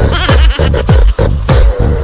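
Loud electronic background music with a steady kick-drum beat, about two beats a second, and a melody running over it.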